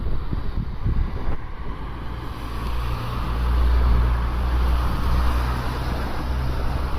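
Strong typhoon wind blowing and buffeting the microphone, swelling into a stronger gust midway.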